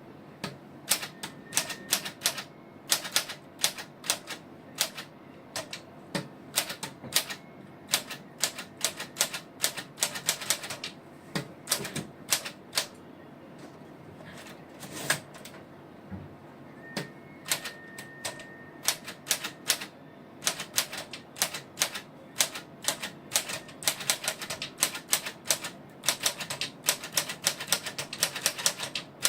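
Smith Corona portable typewriter being typed on: a run of sharp, uneven keystroke clacks, with a short lull about halfway through before the typing picks up again.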